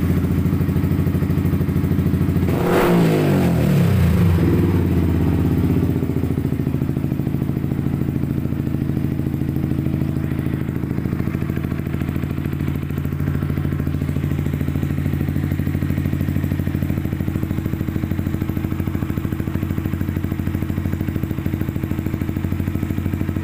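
Yamaha R15's single-cylinder four-stroke engine, just started, running through an Akrapovic aftermarket exhaust. A few seconds in it is revved once, the pitch rising and falling back, then it settles into a steady idle.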